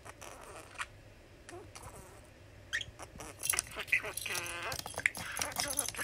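Male budgerigar chattering: a few soft clicks at first, then from about three seconds in a louder, busy run of quick clicks, short chirps and warbles.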